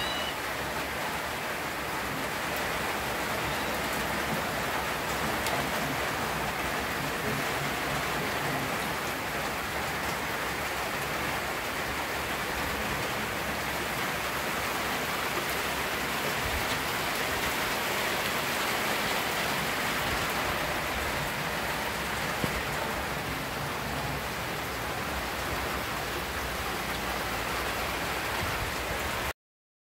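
Rain falling steadily in a thunderstorm, a continuous even hiss. It cuts off suddenly near the end.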